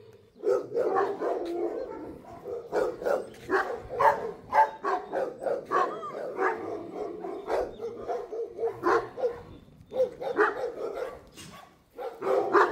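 Shelter dogs barking, many barks in quick succession, with a short break about ten seconds in and again near the end.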